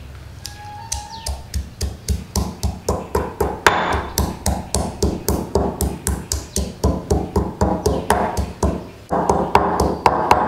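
Stone pestle pounding coriander root and peppercorns in a heavy stone mortar, a steady beat of about three strikes a second that starts about half a second in and gets louder near the end.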